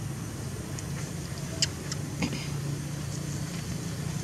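Steady low hum, like a distant running engine, with two short sharp clicks about one and a half and two seconds in.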